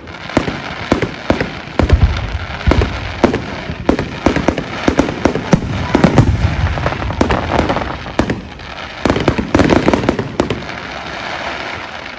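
Aerial display fireworks going off in quick succession: many sharp bangs and crackles, with deeper booms about two and six seconds in.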